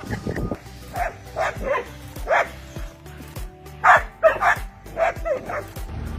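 A dog barking, about ten short barks in quick runs, over background music.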